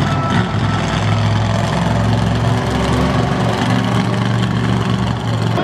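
Vendetta monster truck's engine running loud and steady at low revs as the truck creeps across the dirt, its pitch wavering only slightly.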